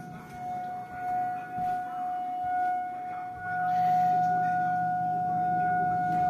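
Outdoor tornado warning siren sounding a tornado warning with a single steady tone, its loudness swelling and dipping as the rotating horn turns, then staying at its loudest from a little past halfway.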